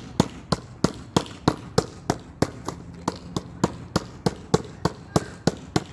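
A basketball being hit over and over in a fast, even rhythm, about three sharp hits a second.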